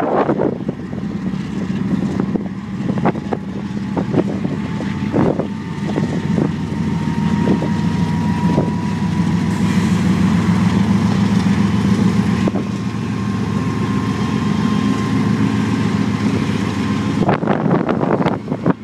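Union Pacific diesel locomotives pulling a loaded rock train away under power: a steady deep engine drone with a thin high whine that rises slightly in pitch through the middle. A few sharp knocks come in the first half.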